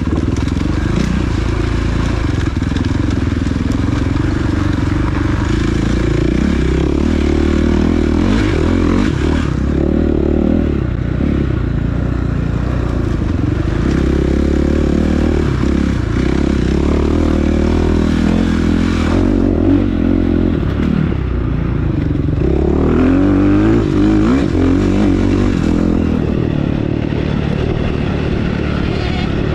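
Off-road motorcycle engine running and revving up and down as it is ridden in a race, heard close up from a camera on the rider or bike. The engine note shifts pitch several times, about 10, 19 and 23 seconds in.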